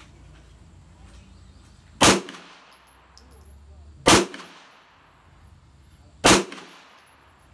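Three single rifle shots about two seconds apart, each a sharp crack followed by a short echo.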